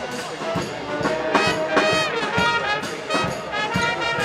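High school marching band playing: brass, trumpets among them, holding and moving through notes over a steady drum beat.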